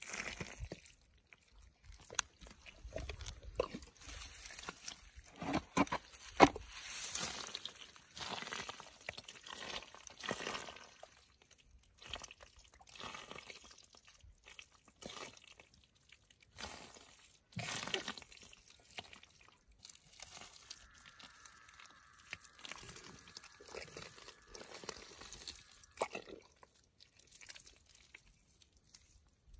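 Gloved hands digging and scooping wet mud and cracked clay out of a burrow, with irregular squelching, crunching and dripping.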